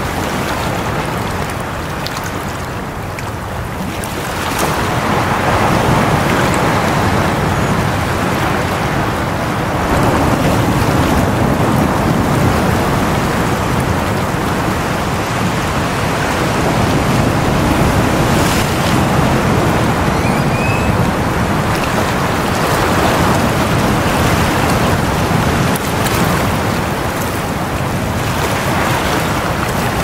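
Sea waves breaking and washing over a rocky shore: a continuous rush of surf that swells louder about four seconds in, then rises and falls with each incoming wave.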